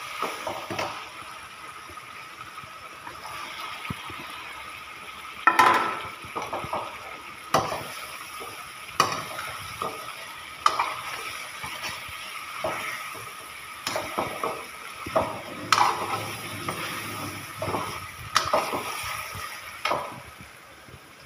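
Elephant foot yam cubes frying in masala in a steel kadhai: a steady sizzle, with a loud clatter about five and a half seconds in as the cubes go into the pan. After that a steel ladle stirs and scrapes the pan, knocking against it every second or two.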